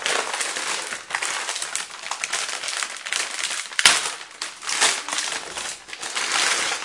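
Packaging rustling and crinkling as a graphics card is lifted out of its box, with a sharp click about four seconds in.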